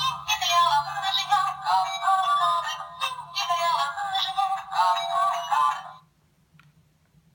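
Children's musical toy book playing a New Year song through its small, tinny speaker, a voice singing over the melody. The song ends about six seconds in.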